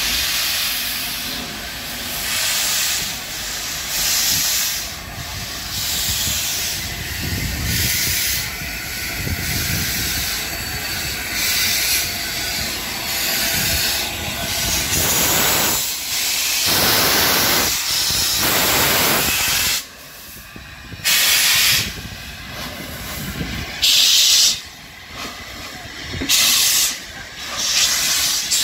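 Gresley Pacific steam locomotive letting off steam: a steady hiss, then several loud bursts of about a second each that start and stop abruptly.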